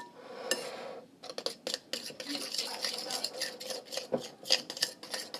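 Metal spoon stirring a thick mixture of glue and food colouring in a bowl, scraping and clinking against the sides. A short lull about a second in, then quick, dense scraping and tapping.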